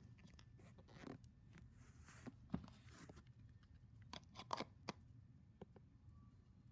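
Faint handling noises: scattered soft clicks and rustles of a clear plastic container as a squishy toy is pulled out of it, with a small cluster of clicks about four to five seconds in.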